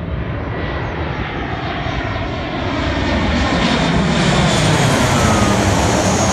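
Boeing 737 jet airliner on its landing approach passing low overhead: a steady jet engine rumble and rush that grows louder, loudest about four to five seconds in.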